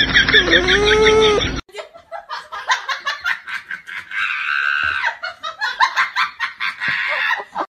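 A dog whining with a pitch that bends up and down, cut off suddenly about a second and a half in; then a person laughing in quick bursts.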